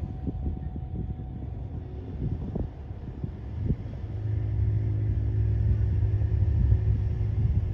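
Light aircraft's engine running with a low rumble, growing louder and steadier about four seconds in.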